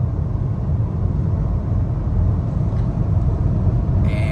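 Steady road and engine rumble inside a moving car's cabin. A higher steady tone joins near the end.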